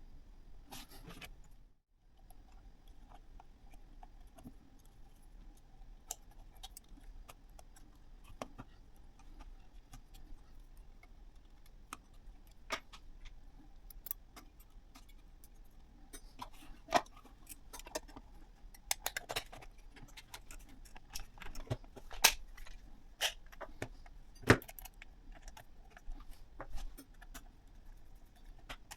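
Irregular sharp clicks and metallic clinks of small hard objects being handled, growing more frequent in the second half, over a faint steady hum.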